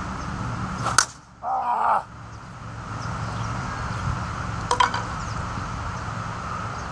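A slowpitch softball bat cracks sharply against a softball about a second in, followed by a short loud burst. A fainter sharp knock comes about four seconds later.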